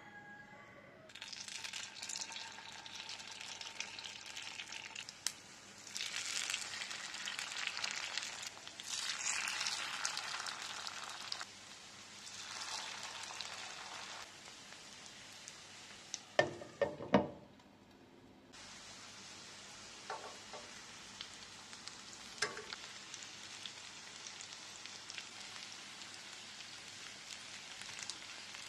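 Grated potato, carrot and zucchini fritter batter sizzling in hot oil in a frying pan, the sizzle rising in surges as each portion goes in and then settling to a steady frying hiss. There are three loud clatters a little past halfway and a few light taps later on.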